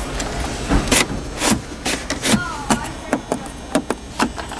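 Irregular clicks and taps as a hand brushes over and presses the controls and trim of a 2012 Range Rover's centre console, about a dozen short knocks spread unevenly.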